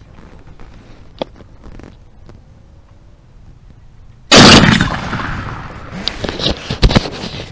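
A single shotgun shot about four seconds in, very loud, its report rolling away over the next two seconds or so, followed by a few sharp knocks.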